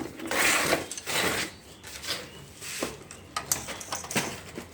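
Handling noise from battery leads being connected: two rustling scrapes, then several separate sharp clicks as the clips are handled and put onto the battery terminals.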